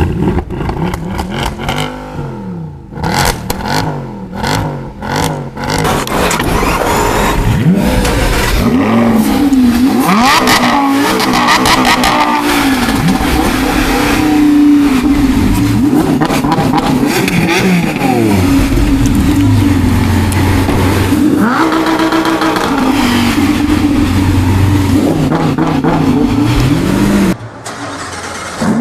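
Lamborghini Huracán's V10 engine revving repeatedly with sharp exhaust pops and crackles, then running hard under acceleration, its pitch rising and falling over and over. The sound cuts off suddenly near the end.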